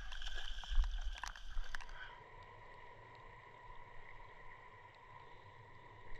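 Wind buffeting the microphone in a low rumble, with scattered sharp clicks, for about two seconds. It then drops abruptly to a quieter background hiss with a faint steady high hum.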